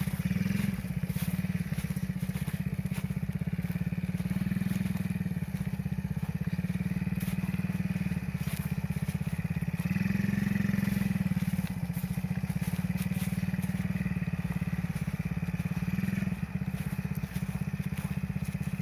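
Small 50cc children's ATV engine running continuously, its note swelling and easing a few times as the throttle is opened and let off.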